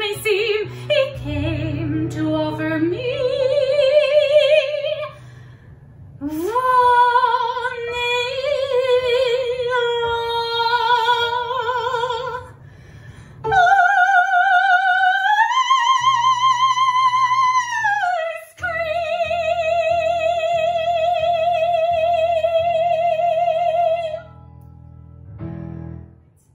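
A woman singing in a classical soprano voice with wide vibrato, her phrases climbing to a long high note a little past the middle, then ending on a long held note that stops about two seconds before the end.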